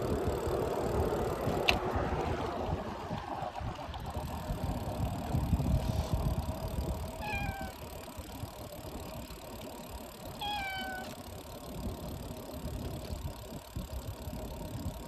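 A cat meows twice, about three seconds apart, each a short call falling slightly in pitch, over steady wind and road noise from a bicycle ride.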